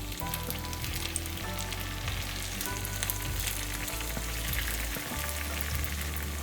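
Tapioca-and-potato nuggets frying in hot oil: a steady sizzle dotted with many small crackles.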